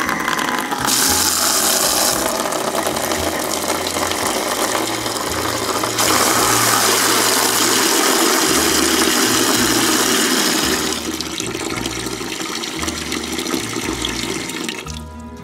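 Water running hard from a newly fitted 1/2-inch CIM ball-valve garden tap, opened fully at the start. The rush gets louder about six seconds in, eases after about eleven, and falls away as the lever shuts it near the end.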